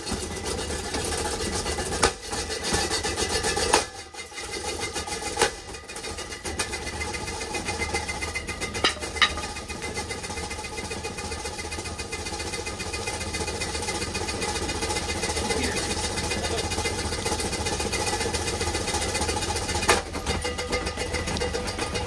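Ceiling fan running at speed: a steady motor hum and blade whir, with a few sharp knocks scattered through.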